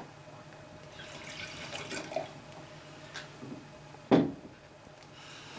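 White wine poured from a glass bottle into a tasting glass, a splashing trickle, then a single sharp knock about four seconds in as the bottle is set down on the table.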